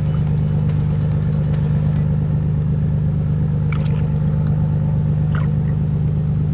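A motor running steadily: a deep, even hum that does not change.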